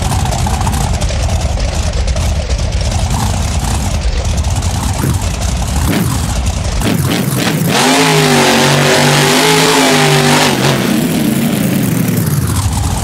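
Monster truck engine running with a low rumble, then revving up about seven seconds in and holding high revs for a couple of seconds before dropping back.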